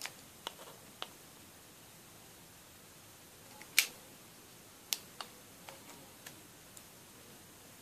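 Scattered light clicks and taps of a plastic car dashboard air vent housing and pliers being handled during a repair, with one sharper click about four seconds in.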